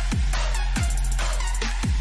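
Electronic dance music, in the style of dubstep or drum and bass, with a heavy kick drum that drops in pitch on each hit over a steady deep bass, and ticking hi-hats.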